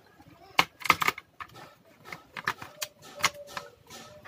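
Plastic laptop case being pried apart with a plastic pry tool: a run of irregular sharp clicks and snaps as the case's clips come loose along the seam.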